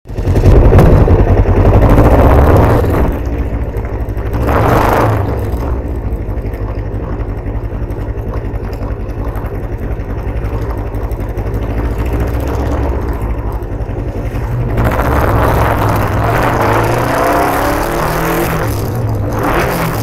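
Sport motorcycle engine running under way, loudest in the first few seconds, then pulling up through the revs with a rising pitch near the end, over wind rush.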